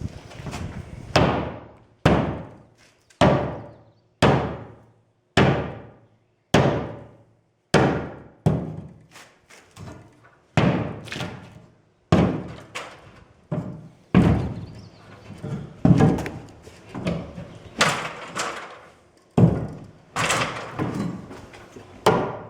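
Hammer blows on wood in a steady series, about one strike a second, each hit ringing briefly before the next.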